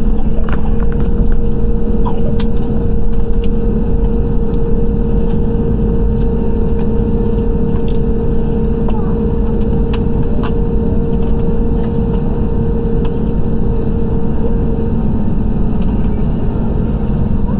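Jet airliner cabin noise heard from a window seat after landing: a loud, steady engine rumble with two steady humming tones. The higher tone fades about fifteen seconds in, and faint clicks and rattles come now and then.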